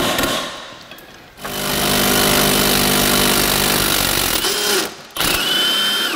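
A sharp clank, then a cordless impact wrench hammering steadily for about three seconds at the rear wheel hub, loosening the axle nut. A second, shorter run of the impact wrench with a high whine comes near the end.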